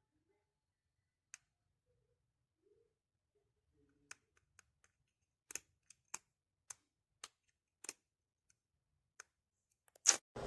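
Sharp plastic clicks and taps from a hot air brush being handled, with its switch or attachments worked, coming irregularly about every half second to a second, the loudest just before the end.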